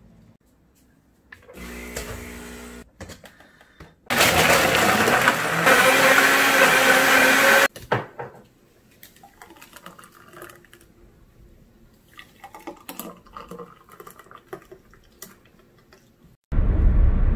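Countertop blender blending fresh fruit juice: a short whir about two seconds in, then the blender running loud and steady for about three and a half seconds before cutting off. Faint clicks and clatter follow, and a loud low rumble starts near the end.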